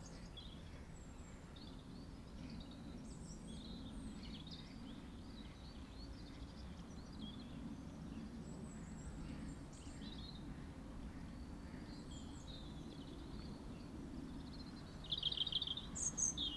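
Small birds chirping and calling faintly over a low, steady outdoor rumble, with a louder quick trill of repeated notes about fifteen seconds in.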